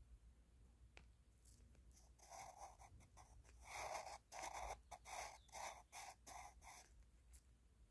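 Pencil scratching across paper in a run of short strokes, about two a second, starting about two seconds in and stopping near the end.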